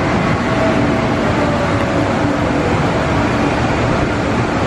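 Steady mechanical rumble of a spinning children's fairground ride in motion.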